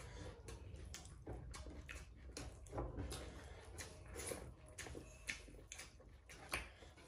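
Faint eating sounds: fingers mixing rice and gravy on steel plates and mouths chewing, heard as short, irregular clicks and smacks.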